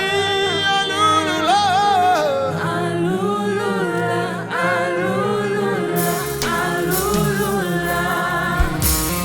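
Live gospel worship song: a lead singer with vibrato and a backing choir holding sustained harmonies over the band. Bass and cymbals come in about six seconds in.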